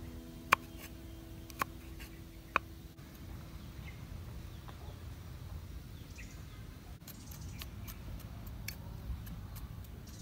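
A cleaver striking a wooden chopping block while slicing chillies: three sharp knocks about a second apart in the first three seconds, then only faint taps. Background music fades out under the first knocks.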